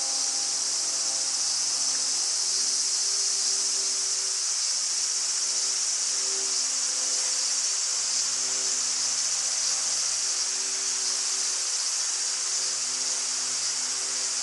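Heavy rain falling on a river surface and the bankside foliage: a steady high hiss.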